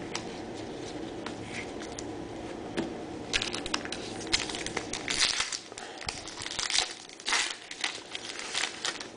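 Trading card packs and cards being handled: crinkling and rustling of wrappers and card stock. After a quiet start, a dense run of sharp crackles and rustles begins about three seconds in.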